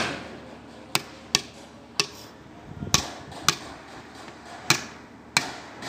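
Hammer tapping a new oil seal into a forklift wheel hub, working around its rim: about eight sharp knocks at uneven intervals.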